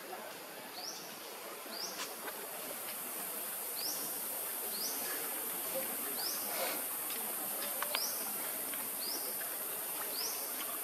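Outdoor natural ambience: a short high chirp that rises and falls, repeating about once a second, over a steady high hiss, with a few faint clicks.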